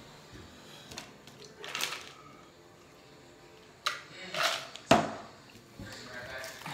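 Eating-table handling sounds: a plastic tumbler lifted, drunk from and set down with a sharp knock about five seconds in, among scattered clicks and rustles.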